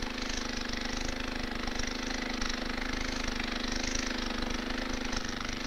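Steady machine hum over a constant hiss, unchanging throughout.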